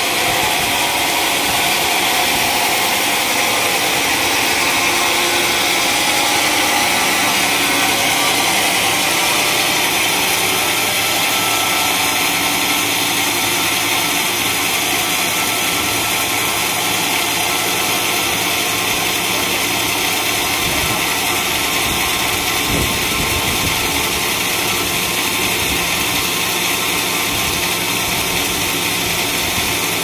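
Large band sawmill running steadily: a constant mechanical drone of the saw's drive and blade, with a steady hiss on top and no break or change in level.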